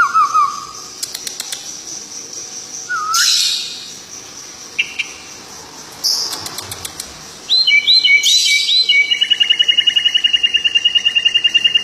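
A bird of unidentified species singing a varied song: a quick falling run of notes at the start, a few short whistled calls, then from about two-thirds of the way in a long, fast, even trill.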